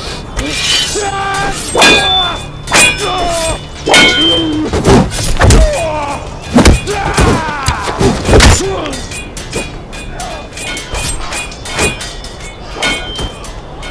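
Sword fight with curved sabres: blades clashing in sharp strikes, some with a short metallic ring, and heavy thuds, mixed with the fighters' shouts and grunts, over background music. The strikes come thickest through the middle and thin out near the end.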